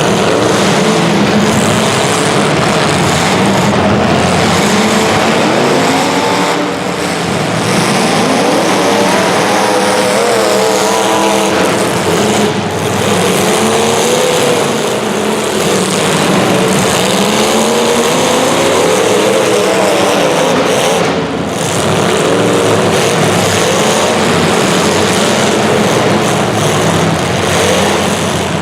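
Several racing engines running together, their pitches rising and falling as they accelerate and back off.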